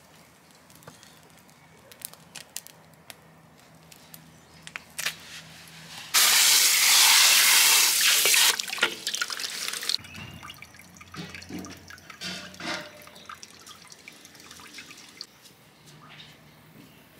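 Scattered small clicks and knocks, then about six seconds in a loud rush of running water that holds for a couple of seconds, stops abruptly and trails off, followed by more light clicks.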